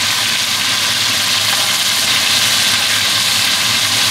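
Chunks of beef searing in hot oil in an enamelled cast-iron pot, a loud steady sizzle, as a wooden spoon turns the pieces to brown them on all sides.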